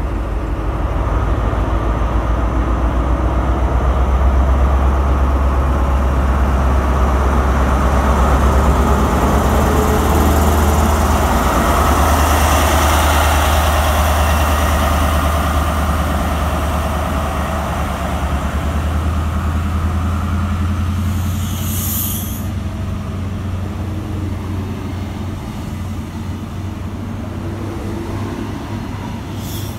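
Diesel engine of a CrossCountry HST Class 43 power car running with a deep steady drone as the power car goes past close by and draws away. The drone peaks about halfway through and then slowly fades as the coaches roll by. Two short high hisses come near the end.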